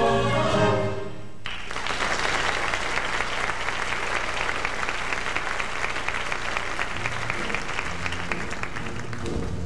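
A choir and its accompaniment end a song with a sudden cutoff about a second in, and an audience breaks into sustained applause. Music starts again near the end.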